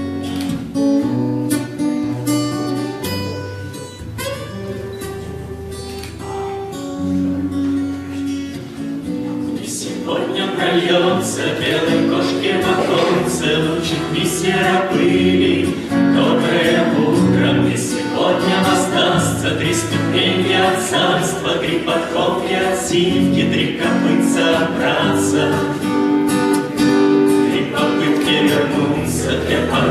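Acoustic guitar playing the introduction to a Russian bard song, then from about ten seconds in a small group of men and women singing together over the guitar.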